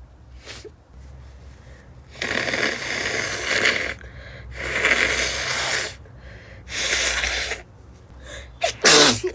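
A woman with a cold in a sneezing fit: three long, breathy noisy bursts, then, near the end, one sharp, loudest sneeze with a voiced cry that drops in pitch.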